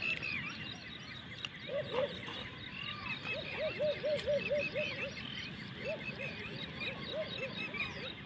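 A chorus of small wild animals calling: short high chirps repeating throughout, with a lower run of about eight quick calls in a row in the middle and scattered single lower calls later.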